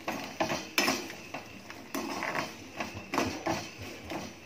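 Metal slotted spoon scraping and clinking against a steel kadai while fox nuts are stirred in hot oil: uneven strokes, about three a second.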